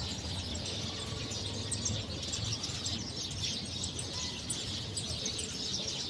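A flock of small birds gathered in a tree to roost for the night, many overlapping high chirps forming a continuous dense chorus.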